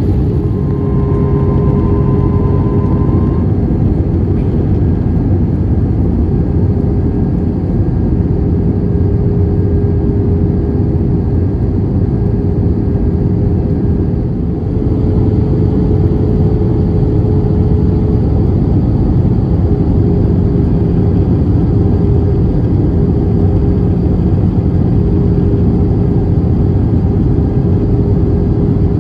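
Cabin noise of an Airbus A320-family airliner in flight: a constant roar of jet engines and rushing air with a steady droning tone running through it.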